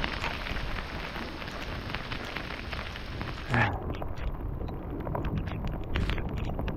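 Hard rain pattering on the lake surface and the kayak, a dense hiss of fine drops. About halfway through, a short loud knock, after which the hiss stops abruptly and a quieter, duller noise with scattered drops remains.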